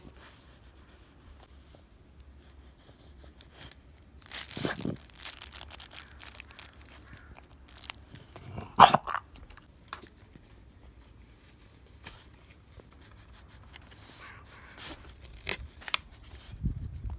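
Intermittent crinkling and rustling of packaging and plush dog toys being handled and nosed by a dog, with a brief louder sharp sound about halfway through.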